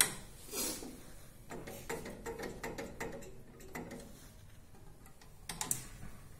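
Scattered light clicks and knocks from handling a Dhona 200D analytical balance and its mechanism, with one sharp click at the start and a small cluster of clicks near the end.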